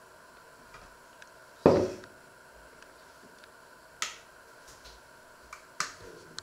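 An enamel bowl of plums set down on a wooden countertop with one solid knock, followed by a few sharp clicks as a digital kitchen scale's button is pressed.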